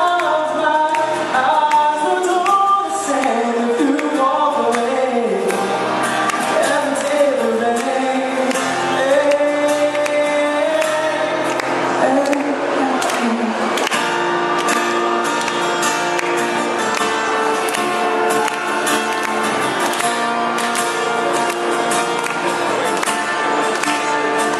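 Live pop ballad: a singer's drawn-out, bending sung notes over instrumental backing for the first several seconds, then steady instrumental accompaniment carrying the song toward the next verse.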